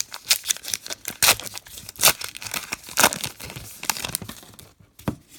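Trading card pack wrappers being torn open and crinkled by hand, a run of irregular crackles with several louder rips about a second apart and a brief lull near the end.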